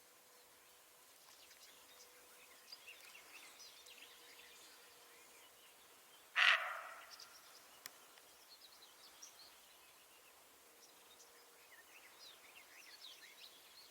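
Roe deer giving a single hoarse bark about six seconds in, sudden and loud, fading within half a second, over faint scattered birdsong chirps.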